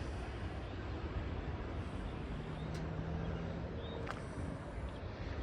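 Steady rushing outdoor background noise, with a faint low hum in the middle and a couple of small clicks.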